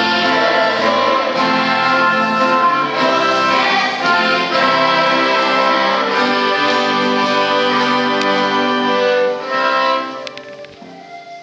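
Fiddles and a guitar playing a tune together. Near the end the playing drops away, leaving a quieter held note.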